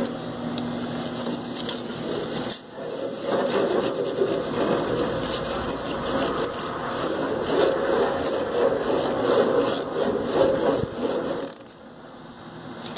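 A halved onion scrubbed back and forth across hot grill grates to clean them: a continuous rough rubbing and scraping that stops near the end.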